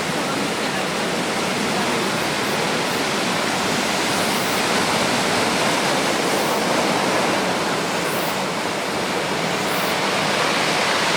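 Ocean surf from a typhoon swell breaking on the shore: a steady, even wash of noise.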